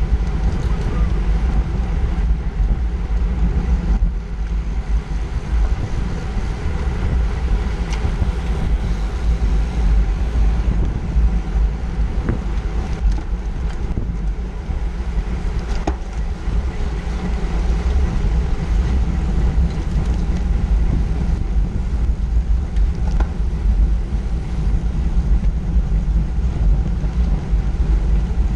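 Wind buffeting an onboard camera's microphone while riding in a road-race pack at about 17 to 20 mph, a loud steady low rumble, with the hiss of bicycle tyres on asphalt underneath.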